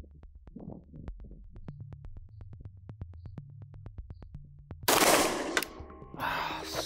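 A single loud shot from a Sarsılmaz SAR 9 9 mm pistol about five seconds in, followed by a quieter burst of noise about a second later, over background electronic music with a steady ticking beat.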